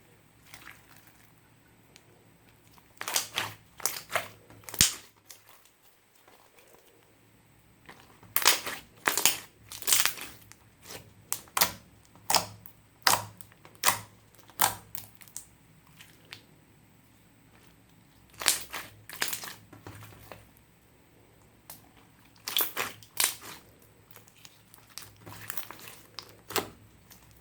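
Slime being squeezed, pressed and stretched by hand: clusters of sharp, sticky clicks and pops as air pockets burst, coming in spells of a second or two with short pauses between.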